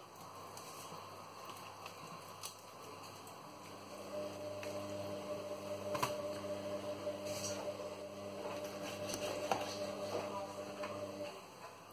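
Induction hob humming as it heats a pan of oil. The steady hum cuts in about four seconds in and stops shortly before the end. Soft clicks, knocks and squishes come from raw mackerel fillets being handled in a plastic tray.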